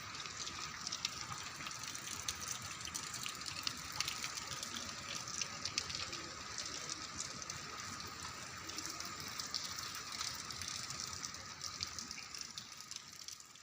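Steady rain falling: a continuous hiss with many small drop ticks scattered through it.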